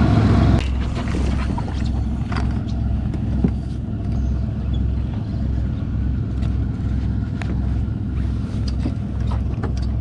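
Outboard motor idling on a small fishing boat: a steady low hum with a slow pulsing, with scattered light clicks over it. A louder rush of noise cuts off about half a second in.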